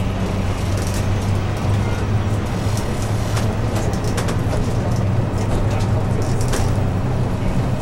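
Airport apron bus driving along, heard from inside the cabin: a steady low engine drone under road and tyre noise, with light rattles now and then.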